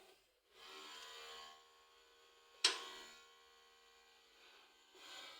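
Faint handling and rubbing noise from parts being worked by hand, with one sharp click about two and a half seconds in.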